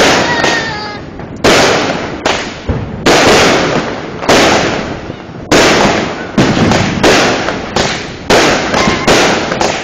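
Aerial fireworks bursting in quick succession: about ten sharp bangs, roughly one a second, each fading off in a crackling tail.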